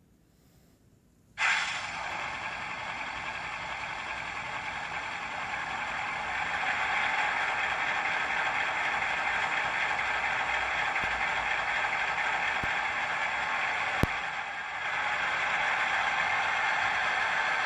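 Digital sound chip in a model DF11 diesel locomotive playing its engine sound through a small speaker. The sound starts suddenly about a second and a half in and runs steadily with little bass, getting louder around six seconds in. There is a sharp click near fourteen seconds, followed by a brief dip.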